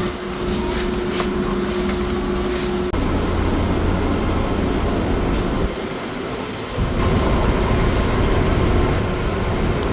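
Poultry-house machinery running with a steady rumbling, rattling clatter. The sound changes abruptly about three seconds in, drops briefly about six seconds in, and picks up again about a second later.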